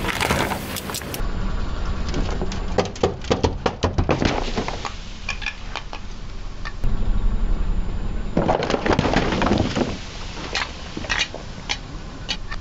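Full aluminium soda cans crunching and bursting under a car tyre: a run of sharp cracks and crackles in several bouts, the densest about two-thirds of the way through.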